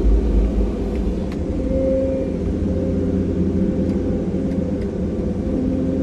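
Cat 340 hydraulic excavator's diesel engine running steadily under load, a low rumble with steady humming tones over it.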